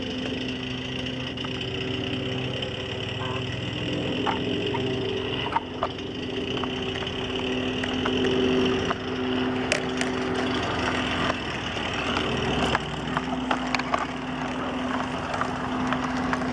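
G-scale model VW T1 bus rail car running along garden-railway track, its small electric drive motor and gears giving a steady hum that drops out briefly about two-thirds of the way through. Scattered sharp clicks in the second half.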